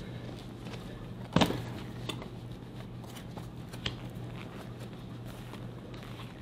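Handling noise as a homemade leather-and-metal-splint suneate shin guard is fitted over a hakama: one sharp knock about a second and a half in, then a few light clicks, over a steady low hum.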